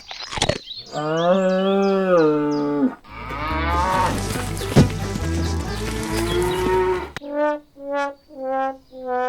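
A cow moo, long and falling at its end, then a few seconds of music with a beat, then a run of short, evenly spaced, horn-like tones.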